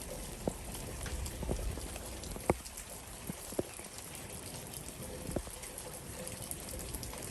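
Rain falling in a steady patter, with single heavy drops landing close by every second or so, the loudest about two and a half seconds in.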